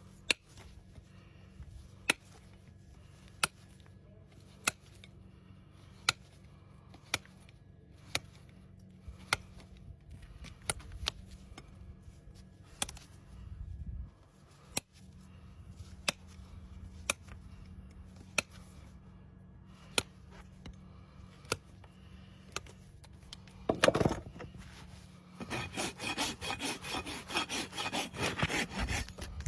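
Sharp snaps from hoof-trimming tools cutting into an overgrown horse hoof, about one every second and a bit, over a steady low hum. Near the end a hoof rasp starts filing the hoof in quick strokes.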